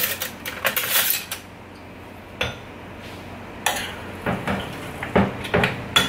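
Metal spoon clinking and scraping against a frying pan while an omelette is worked loose from the pan bottom: a cluster of clatter at the start, a single click, then a run of separate clinks near the end.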